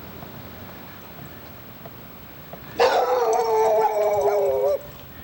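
A dog howls once, a long wavering howl that starts about three seconds in and lasts about two seconds. To its owner the dog is not happy.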